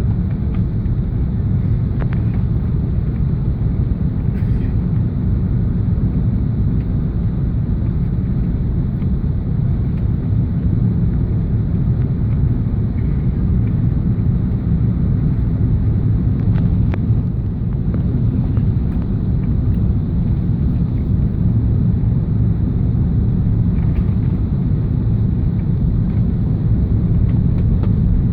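Steady low rumble of an Airbus A380's cabin, with engine and airflow noise heard from a passenger seat.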